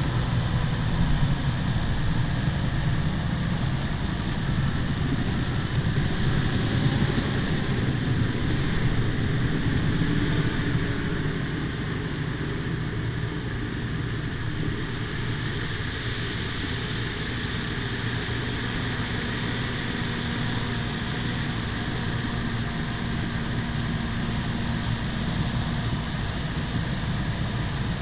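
Bulldozer's diesel engine running steadily under load as the dozer pushes topsoil, a continuous low-pitched drone that eases slightly in the middle.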